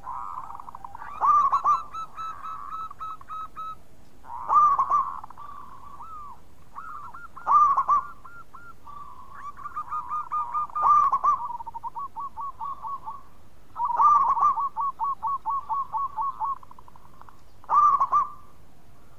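Zebra dove (perkutut) cooing in song: six loud phrases about every three seconds, several trailing off into a quick run of short staccato coos.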